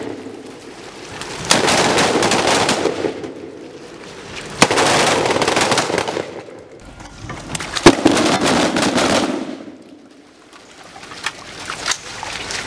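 M4 carbine gunfire: three loud volleys about three seconds apart. Each opens with a sharp crack and carries on in a dense rattle for a second or two before dying away, with a few lighter cracks near the end.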